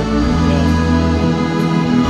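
Live band music filling a large arena: held, sustained chords over a deep, steady bass.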